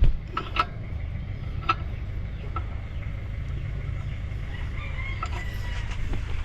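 Scattered light metal clicks and knocks of hand tools on an opened-up Toyota Wigo engine as the crankshaft is turned to bring each piston up, over a steady low hum. The piston heights are being checked for bent connecting rods, the cause of the engine's knock.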